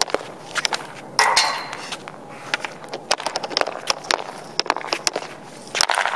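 Easton S19 hockey stick blade tapping a puck back and forth on a plastic shooting pad: a quick run of irregular sharp clicks from stickhandling, with a harder clack just before the end as the puck is shot.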